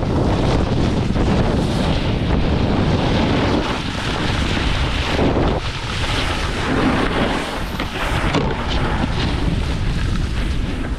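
Heavy wind rushing over the microphone of a camera carried by a rider moving at speed, a steady loud buffeting roar.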